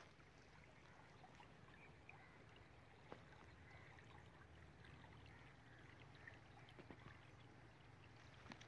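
Near silence: faint open-air background with a low steady rumble and a few faint ticks.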